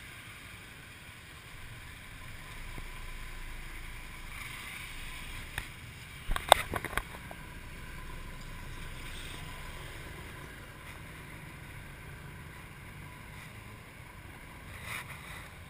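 Steady low rumble of a motorbike taxi's small engine and surrounding traffic heard from the pillion seat, with wind on the microphone. A quick cluster of sharp knocks about six and a half seconds in.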